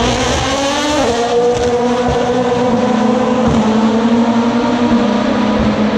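Race car engines accelerating out of a slow corner, with a gear change about a second in, then a steady engine drone as the cars pull away.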